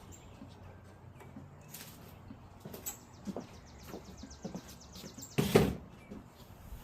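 Metal parts of a 727 automatic transmission being handled: light clicks and clinks, with one louder clunk near the end. A bird trills in the background, a fast run of high chirps from about three seconds in.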